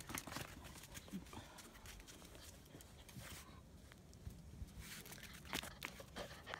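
Faint, scattered clicks and light taps of German Shepherd puppies' paws and claws on a concrete patio, with a couple of louder knocks near the end.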